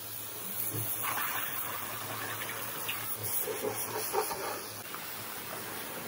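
Pressure-washer wand spraying a jet of water onto a car's wheel and wheel arch: a steady hiss and splash of water that grows louder about a second in.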